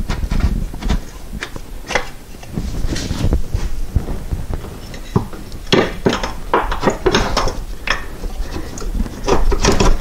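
Metal parts being handled by hand in a car's engine bay: irregular clinks, knocks and rubbing, with a quick run of sharp clicks in the second half.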